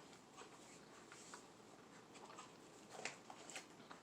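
Near silence: quiet room tone with a few faint small clicks and taps, a cluster of them about three seconds in.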